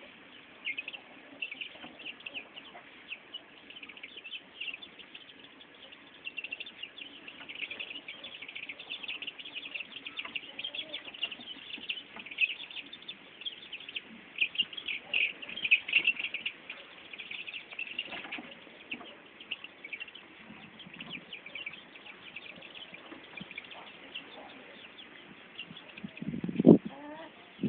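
Young chickens peeping, a dense, continuous stream of short high peeps, with one short, louder, lower call near the end.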